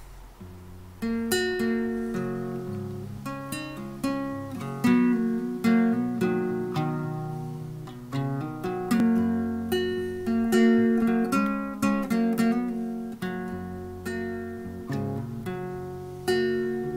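Solo acoustic guitar playing the introduction to a song: chords strummed roughly once a second, each ringing out and fading before the next. It starts about a second in.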